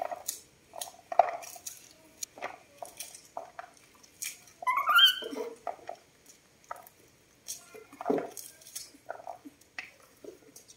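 Corn kernels being thumbed off a cob by hand, clicking and rattling into a plastic bowl. Mixed in are short high squeals from baby monkeys, with one falling squeal about halfway through.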